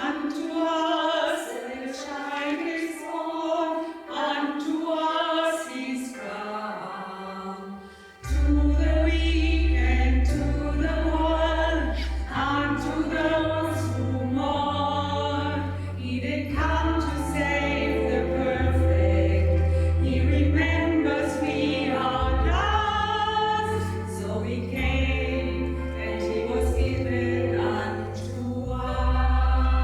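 Choir singing. Deep sustained bass notes of an accompaniment come in about eight seconds in, and the music grows louder there.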